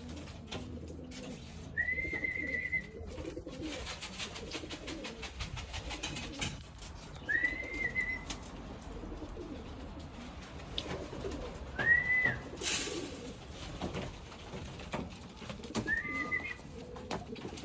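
Pigeons cooing in a loft, with scattered faint clicks. Four short, high, rising chirps come at intervals of about four to five seconds.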